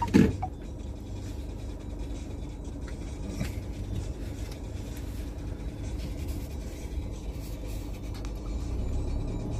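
Low, steady rumble of a car's engine and tyres on the road, heard from inside the cabin while driving slowly. One short, loud thump comes right at the start.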